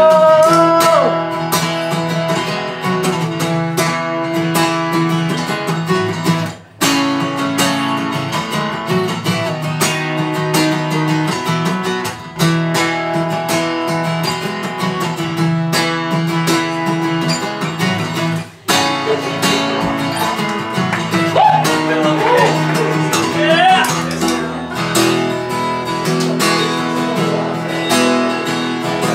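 Instrumental break of a song: guitar chords strummed and held, with very short stops about 7, 12 and 19 seconds in. A sung note trails off at the very start.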